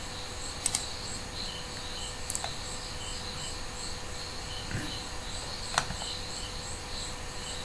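Background chirping of crickets, an evenly repeating high pitch, with three sharp clicks, the first about a second in and the last near six seconds in.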